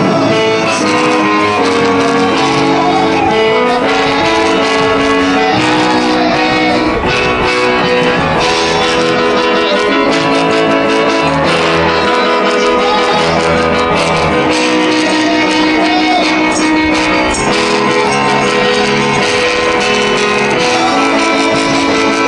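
Music with guitar, playing steadily throughout.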